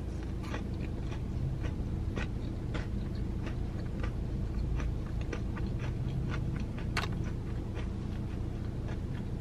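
A person chewing a bite of breaded fried shrimp, with many small crunches and mouth clicks over a steady low background hum.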